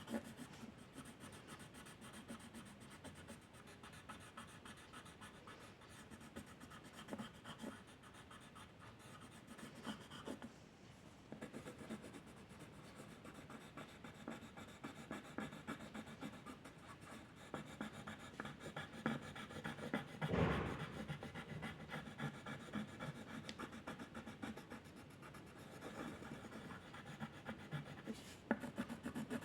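Drawing strokes on paper, a soft steady scratching as the tool moves. There is one louder thump about two-thirds of the way through.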